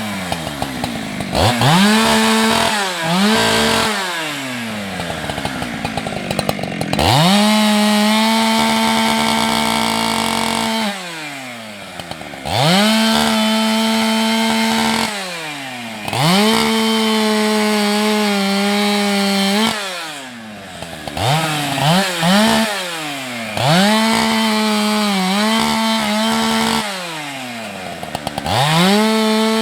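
Husqvarna 365 two-stroke chainsaw delimbing a felled tree: the engine revs up to full throttle for cuts of two to four seconds, then drops back toward idle between them, about seven times, with a few quick throttle blips in between.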